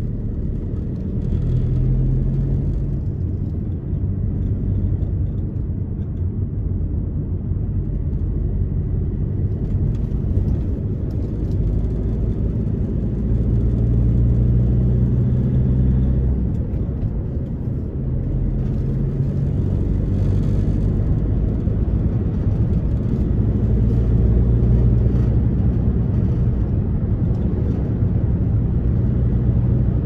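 Car driving along a road: steady engine and tyre rumble, with the engine hum swelling and easing a few times.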